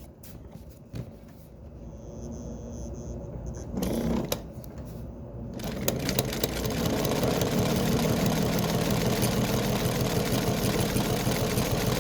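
Kenmore 117.552 domestic sewing machine: a few light clicks of handling, then about halfway through the machine starts and runs steadily at speed, stitching. It is heard through the camera resting on top of the machine, so the needle mechanism's fast clatter comes through loud and close.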